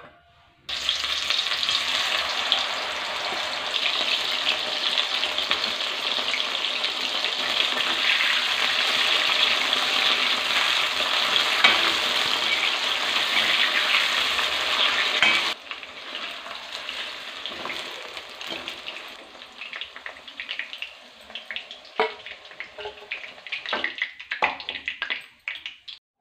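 Mushrooms frying in hot oil in a metal kadai, an even sizzle that starts about a second in, stirred with a steel spatula. About halfway through the sizzle drops lower, and sharp scrapes and knocks of the spatula against the pan come through before it stops near the end.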